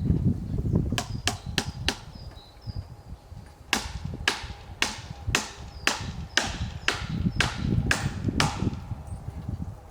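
Hammer driving a nail into a tree: four quick blows, a short pause, then about nine steady blows at roughly two a second, each with a brief ringing tail. Small birds chirp faintly.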